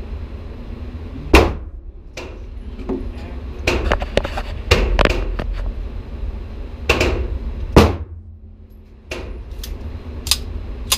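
Gunshots from other lanes of an indoor shooting range: about a dozen irregularly spaced shots, each echoing off the walls, the loudest about a second and a half in and again near eight seconds. A steady low rumble runs underneath.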